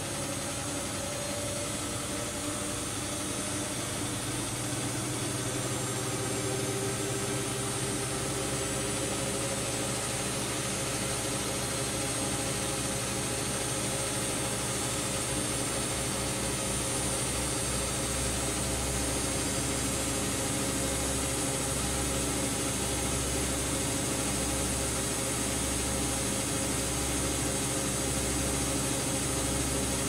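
Two front-loading washing machines, a Siemens Siwamat IQ 716 and a Bosch Aquasensor WFP3231, running together with their drums turning: a steady mechanical hum. About halfway through, a low throbbing beat of roughly once a second sets in and the sound grows slightly louder.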